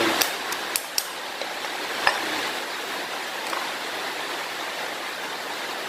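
Steady hiss of heavy rain on the roof, with a few small sharp clicks of wires and the plastic outlet being handled in the first couple of seconds.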